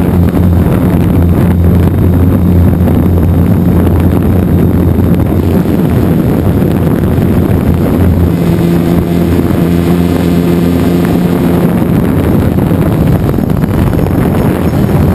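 DJI Phantom 2 quadcopter's motors and propellers whirring loud and steady, picked up by the camera on the drone itself, with wind rushing over the microphone. The rotor hum changes pitch about halfway through.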